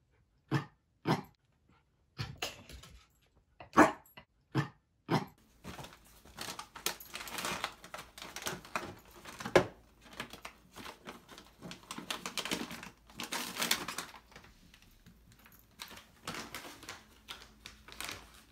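A small dog gives about six short, sharp barks over the first five seconds. Then comes a long stretch of rustling and crinkling of plastic bags and packaging as a dog roots through them.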